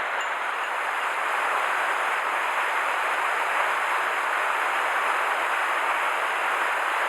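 Steady rushing of a mountain stream running high.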